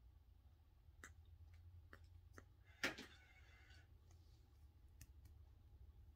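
Near silence over a steady low hum, broken by faint scattered clicks and taps from hands moving while signing, with one sharper tap about three seconds in.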